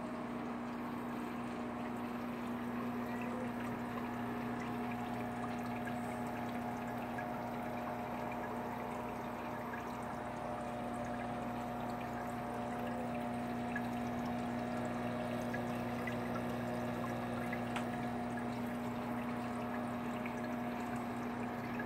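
Water trickling and bubbling in a hydroponic grow pail, over the steady low hum of its pump.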